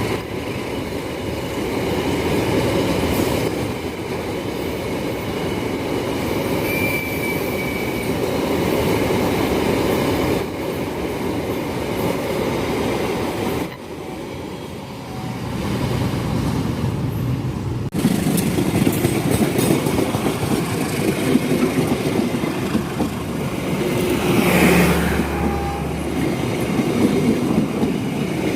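Indonesian trains running on the rails: wheel-on-rail rumble and clatter with some wheel squeal. The sound changes abruptly several times as different passing trains are cut together, with a louder swell near the end.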